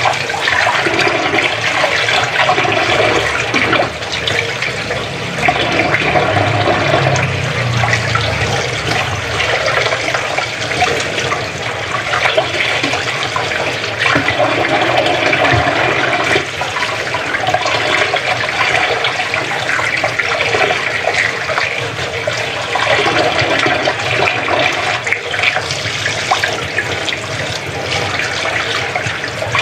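Kitchen tap running in a steady stream, the water splashing over hands and into a metal sink as they rub and rinse under it.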